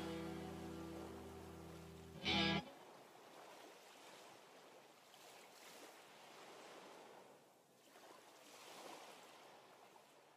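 Cover band's final held chord ringing out and fading, closed by a short loud final hit about two seconds in that cuts off suddenly. Then faint ocean surf washes in and out.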